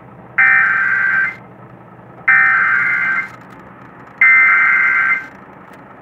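Emergency Alert System SAME header coming through a television speaker: three buzzing bursts of digital data tone, each about a second long and about a second apart, the coded header that opens an emergency alert.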